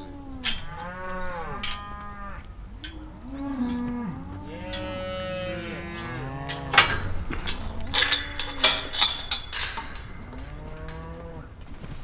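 A herd of cattle mooing, many calls overlapping, each rising and falling in pitch. A run of sharp knocks or clanks falls in the middle and later part and is louder than the calls.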